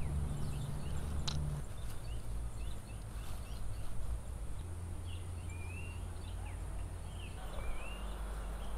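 Small birds chirping repeatedly, each call a short rising note, over a steady low rumble. There is a single sharp click about a second in.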